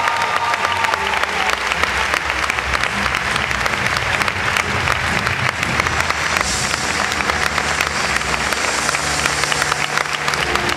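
Audience applauding steadily, with music playing faintly underneath.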